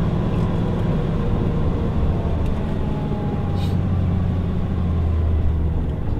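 Caterpillar 3208T turbo-diesel V8, rear-mounted in a Denning Landseer coach, heard from inside the passenger cabin while the bus drives. About two seconds in, the engine note drops lower and its drone grows stronger. There is a short hiss just past halfway.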